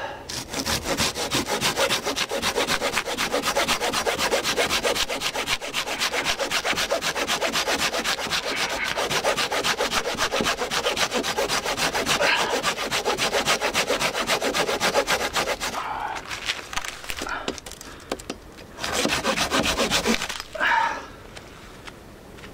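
Hand saw cutting through firewood with rapid, steady strokes for about fifteen seconds, then stopping. A few scattered shorter sounds follow near the end.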